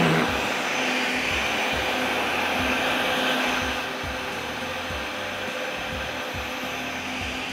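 Countertop blender running steadily, puréeing fried onions with water in its jug; it gets a little quieter about four seconds in.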